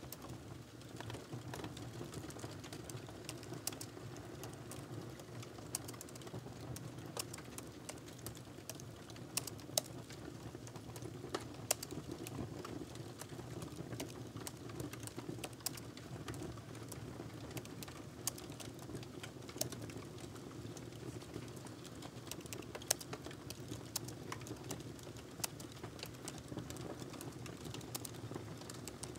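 Typing on a laptop keyboard: an irregular, continuous run of soft key clicks over a low, steady background hum.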